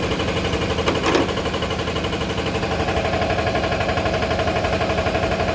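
Toilet-paper rewinding machine running with a fast, even mechanical rhythm. A brief sharp sound comes about a second in, and a steady whine joins about three seconds in.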